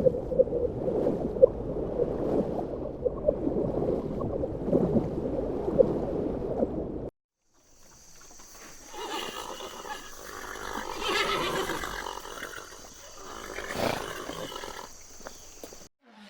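Two clips joined by a cut. First, about seven seconds of a rough, noisy sound with many small crackles. Then, after a short gap, a horse neighing in calls that swell and fade over a steady hiss.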